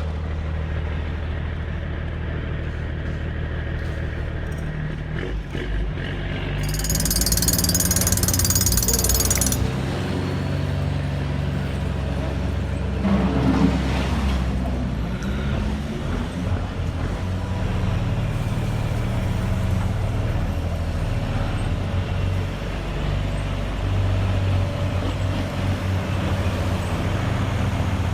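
Truck engine sound from an RC model truck running steadily, with a hiss of air lasting two or three seconds about seven seconds in and a brief louder clatter around halfway.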